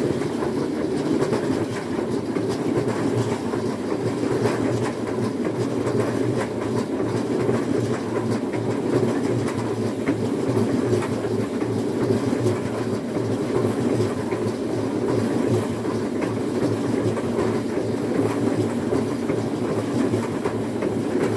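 Electric-motor Christmas tree baler running steadily as it rotates a tree and wraps it in sisal twine: a continuous hum with a fast, even clatter.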